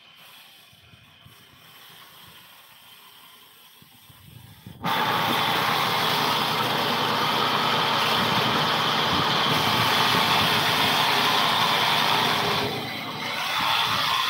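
Sawmill's vertical band saw blade cutting into a squared log. It is fairly quiet at first, then a loud, steady rasping cut starts suddenly about five seconds in and carries on, dipping briefly near the end.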